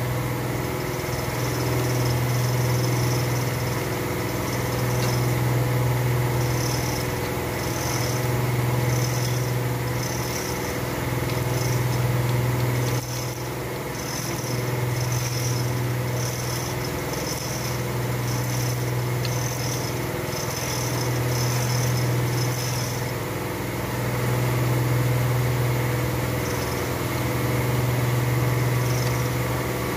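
A machine running steadily with a low hum that swells and fades every few seconds.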